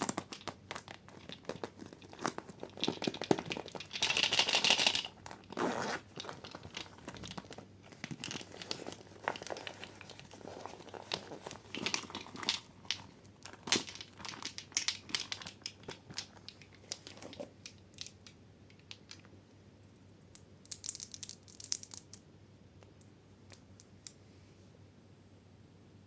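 Slime being handled and mixed by hand: an irregular run of sticky clicks, pops and crackles, with a dense louder burst about four seconds in and another around twenty-one seconds.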